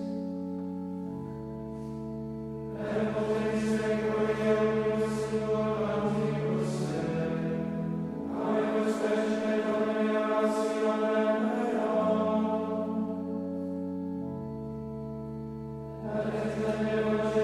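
Men's choir chanting the Latin plainchant of Compline in phrases over long held notes, quieter between phrases about two seconds in and again near the end.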